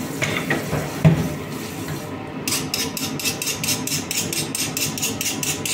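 Rhythmic scraping on a large raw fish being cleaned by hand, about four or five quick strokes a second, starting a little over two seconds in. A single thump comes about a second in.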